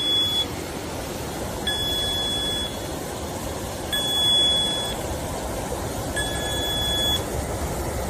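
Electronic warning buzzer of a CO2 alarm device sounding high one-second beeps about every two seconds, over the steady rush of a small blower fan running to push excess carbon dioxide and carbon monoxide out of the car.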